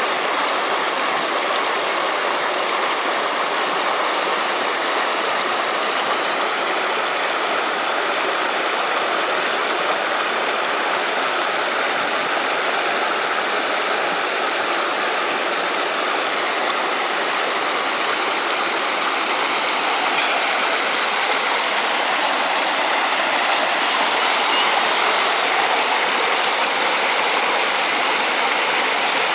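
Shallow rocky mountain stream rushing and splashing over boulders and small drops, a steady broad rush of water.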